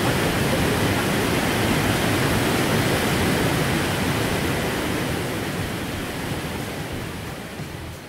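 Mountain stream rushing down a rocky gorge in whitewater cascades: a loud, steady rush of water that fades out over the last few seconds.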